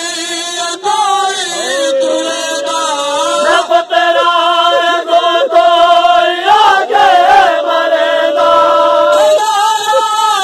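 A man chanting a noha, a Shia lament sung unaccompanied, in a high voice. He holds two long, wavering notes with ornamented turns between them.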